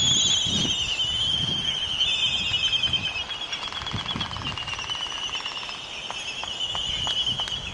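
Bird calling with a continuous high-pitched, wavering trill that runs on with brief changes in pitch, with faint clicks scattered through it.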